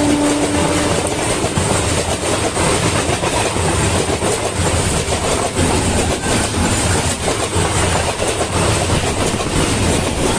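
Two EMU local trains crossing at speed: an ICF-built EMU's coaches rush past close alongside, with a rapid clickety-clack of wheels over rail joints and a deep rumble, heard from a doorway of the other moving train. A horn note cuts off about a second in.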